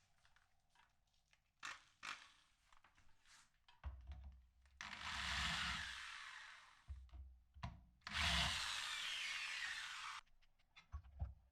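A handheld power tool, most likely a drill, runs in two bursts of about two seconds each, cutting or working material. Before the bursts come a few separate clicks and knocks of handling.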